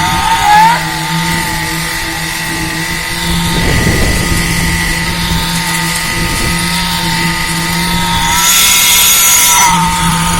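Engine-driven ready-mix concrete machinery running steadily, a mix of engine drone and a steady whine, with a brief warbling squeak near the start and a rougher, noisier patch midway.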